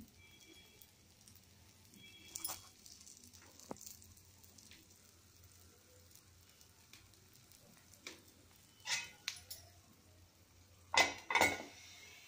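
Ponganalu batter frying in oil in a non-stick appe pan, a faint sizzle with scattered small pops and clicks. Near the end a glass pot lid is set down on the pan with two loud clinks about half a second apart.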